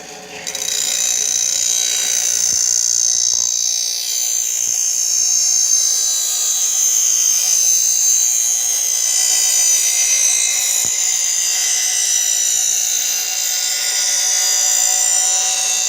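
Steel machete blade ground against a spinning stone grinding wheel while being sharpened: a loud, harsh, high-pitched grinding that starts about half a second in and holds steady, shifting slowly in pitch as the blade moves across the wheel.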